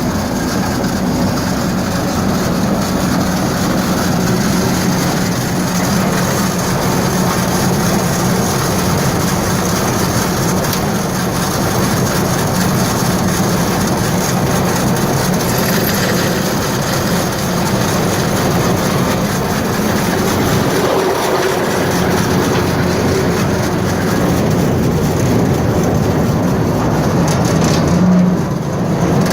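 Arts-Way Model 475M grinder mixer running steadily, a continuous mechanical drone and rattle with a constant low hum.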